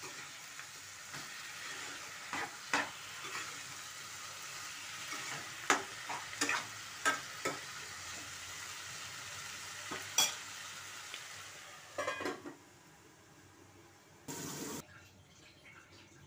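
Spatula stirring and scraping greens and tomatoes in a sizzling non-stick kadai, with sharp clicks of the spatula against the pan. About twelve seconds in there is a clatter and the sizzling dies down as a steel lid covers the pan, followed by a short burst of noise.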